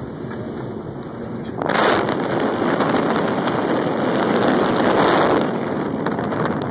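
Wind rushing and buffeting over the microphone at the car's open side window while it drives a dirt road, with a dense crackle; it comes in suddenly about a second and a half in and eases slightly near the end.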